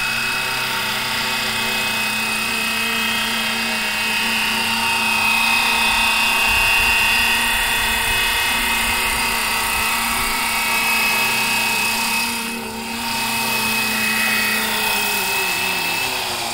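Battery-powered RC scale helicopter on Bell 206 V2 mechanics, running with a steady whine of its electric motors and rotor while it lifts off and hovers low. Near the end the pitch falls as the rotor spools down after landing.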